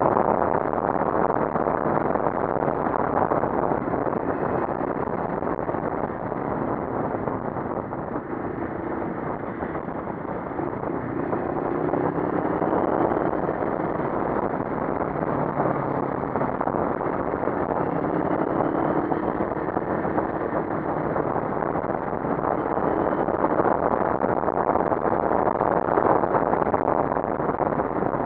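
CFMoto 400NK motorcycle's parallel-twin engine running while riding, heard from the rider's seat over road and wind noise. The engine pitch rises and falls a little with the throttle.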